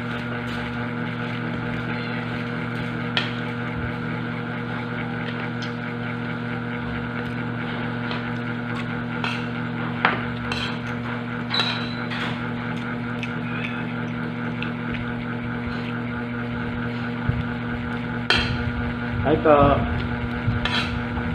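A steady machine hum with several fixed tones, with scattered light clicks of a spoon and fork on plates. Near the end there is a louder stretch holding a short wavering vocal sound.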